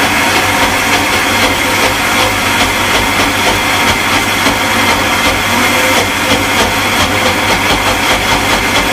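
Electric blender motor running at full speed with a small grinding jar, dry-grinding soaked red lentils into a thick paste with no water added. The whir is loud and steady throughout.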